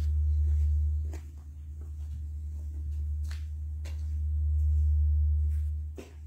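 A steady low rumble with a few soft footsteps spaced a second or two apart.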